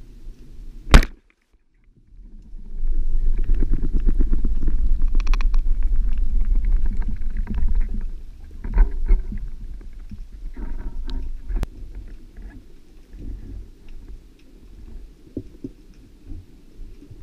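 A band speargun fires with one sharp crack about a second in. From about two and a half seconds, a loud low rumble of water rushing against the underwater camera as the diver swims, fading later, with scattered knocks and clicks.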